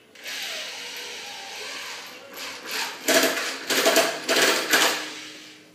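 Cordless drill driving screws through a pipe strap into a wooden post, fastening PVC conduit to the pole: a steady whir for about two seconds, then about three louder short bursts as the screw is driven home.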